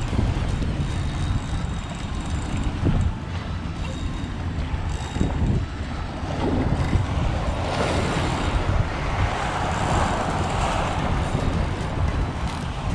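Wind buffeting the microphone over a choppy sea, with waves washing against the boat. A broader rushing hiss swells about eight seconds in and fades a few seconds later.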